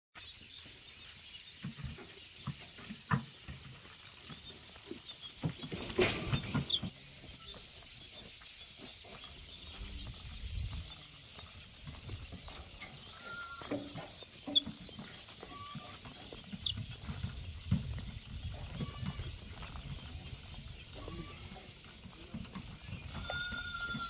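Goats bleating in a pen: a few short calls scattered through, and a clearer, louder bleat near the end. Scattered knocks and thumps in between, the loudest about six seconds in.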